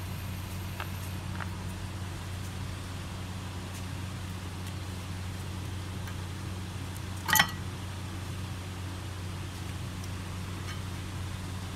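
Old brake pad being worked out of the caliper bracket by hand: a few faint clicks, then one short, sharp clatter about seven seconds in as the pad comes free, over a steady low hum.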